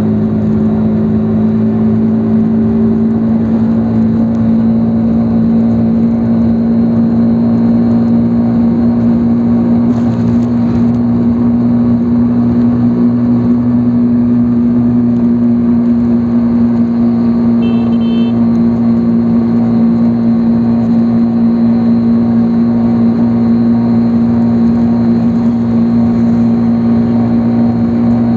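Motorcycle engine running steadily at cruising speed, heard from the rider's seat: a steady drone that holds one pitch, with no gear changes.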